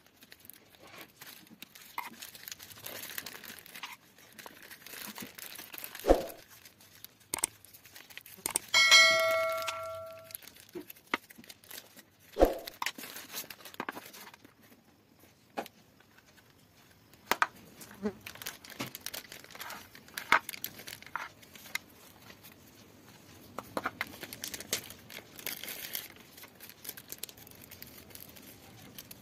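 Plastic courier mailer being cut with scissors and crinkled, torn and unwrapped by hand, with scattered rustles and a few knocks on the table. About nine seconds in, a short metallic ring dies away over a second or so.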